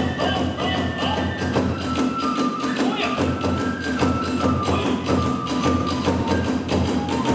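Kagura hayashi music: a taiko drum beaten in a fast, even rhythm with clashing hand cymbals, under a bamboo transverse flute that holds long notes stepping down in pitch.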